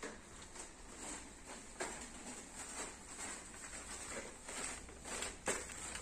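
Faint, irregular knocks and taps from workers moving about and handling plastic poultry feeder pans, with one louder knock near the end.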